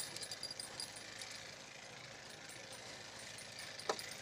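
A few light clicks in the first second, then one sharp knock near the end, aboard an aluminum jon boat over a steady background hiss.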